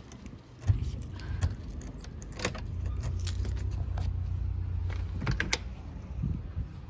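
Low steady rumble of a car in motion, heard from inside, with keys jangling and several sharp clicks and rattles.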